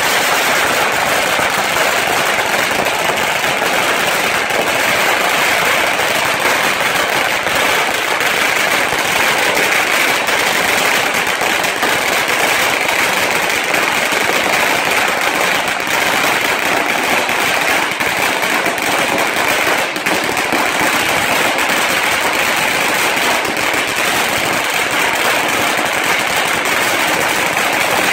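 A long string of Chinese firecrackers going off in an unbroken, rapid crackle of bangs, steady and loud throughout as the string burns along its length.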